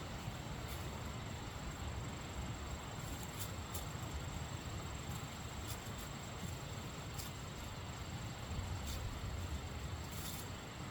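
Outdoor ambience: a steady, thin, high-pitched insect drone over a low rumble, with a few faint scattered ticks.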